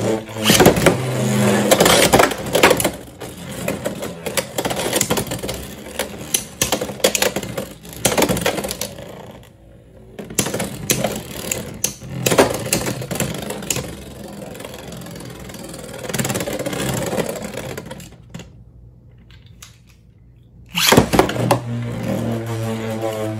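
Plastic Beyblade X tops, Tyranno Beat 5-60P and Leon Crest 7-60GN, spinning and clashing in a Beyblade X stadium, with repeated sharp clacks and rattles as they collide and scrape along the rail. The sound dies down twice, about ten seconds in and again near nineteen seconds. About twenty-one seconds in, a sudden loud clatter starts as a new round begins.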